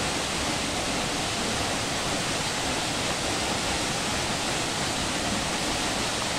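Steady rushing of a fast-flowing, murky jungle river.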